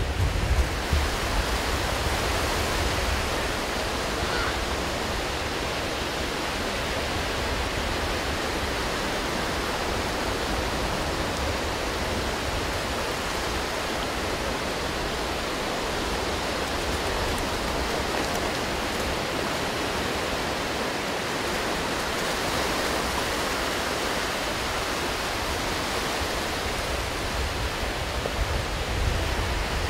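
Ocean surf breaking and washing up the beach: a steady rushing noise, with wind buffeting the microphone in low gusts at the start and again near the end.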